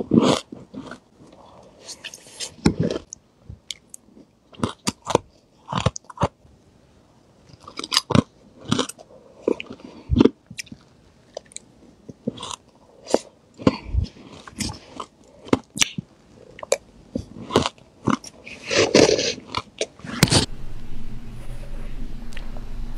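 Close-up crunching of spoonfuls of fluffy crushed ice being bitten and chewed: a string of sharp, irregular crunches, several a second in places. About 20 seconds in, a steady low hum comes in beneath the crunching.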